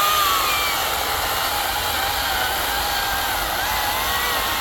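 Greenworks 82-volt cordless chainsaw running at full speed and cutting through oak: a steady, high electric motor whine that sags a little about half a second in and wavers as the chain bites under load.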